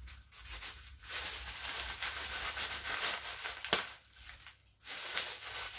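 Plastic courier mailer bag crinkling and rustling in spells as it is handled and a small packet is pulled out of it, with one sharp snap of plastic about two-thirds of the way through.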